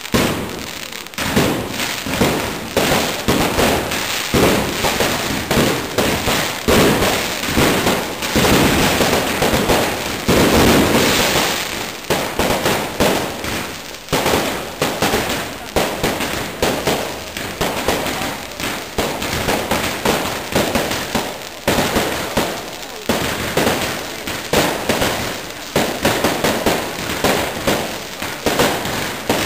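Fireworks bursting overhead in a rapid, continuous barrage of bangs and crackles. The barrage is loudest and densest about a third of the way in.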